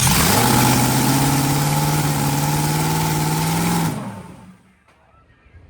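Supercharged Top Fuel dragster V8 running steadily on alcohol, then shut off about four seconds in, dying away within half a second.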